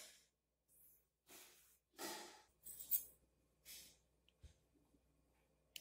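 Near silence broken by a few short, soft puffs of noise, like breaths or handling rustle, the loudest about three seconds in, and a small low knock about four and a half seconds in as a plastic cigarette lighter is picked up and gripped.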